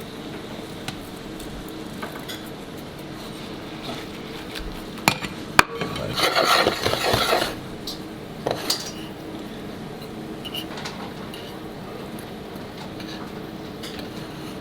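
Kitchen clatter of pans and metal utensils: a few sharp clinks about five seconds in, a noisier stretch of about a second and a half just after, and two more clinks near nine seconds, over a steady background hum.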